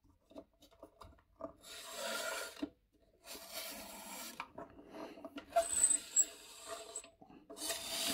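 Circle cutter's blade being turned around its pivot on thin paper: a few small clicks, then scraping in several passes with a thin high squeal in the middle, a grating sound that hurts the ears.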